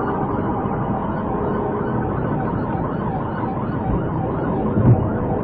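Police car siren sounding over car and road noise, from about halfway a fast yelp that rises and falls several times a second. A single short thump near the end.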